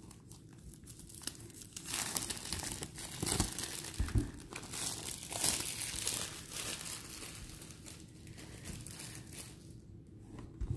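Plastic shrink-wrap crinkling and tearing as it is peeled off a boxed tarot deck, in irregular crackles, busiest in the middle, with a couple of dull bumps of the box being handled.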